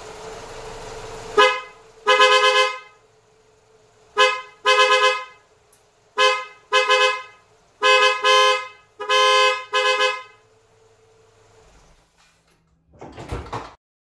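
A Seger dual snail horn set (410 and 510 Hz), sounded in about ten short blasts of varying length over some nine seconds, with the car's engine idling underneath. With the engine running the horns get enough voltage to sound full. A loud rushing noise fills the first second and a half, and a short rough noise comes near the end.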